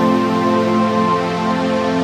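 Slow ambient new-age underscore of long, held tones layered over one another. A high held tone fades out about a second in.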